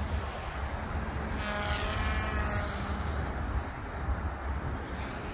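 Small electric RC helicopter whining briefly as it passes, the tone swelling and sweeping in pitch for about a second and a half, starting about a second and a half in. A steady low rumble runs underneath.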